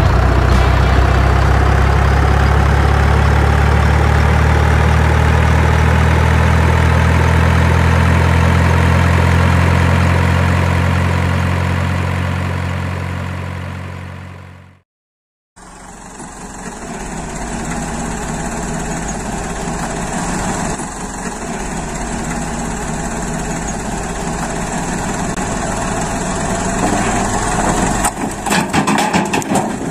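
Truck engine idling, a steady low rumble that fades out about halfway through and breaks off briefly. It then gives way to a different, higher steady engine sound. Near the end this turns irregular and rattly as the dump bed tips and the load starts to pour.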